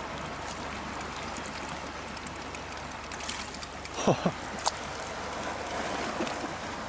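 Sea water lapping and washing against shoreline rocks, a steady noise with small splashy ticks. A little past halfway come two quick downward-sliding squeaks and a sharp click.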